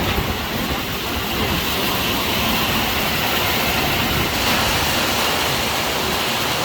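Heavy storm rain pouring down with strong wind, a steady, even rush of noise.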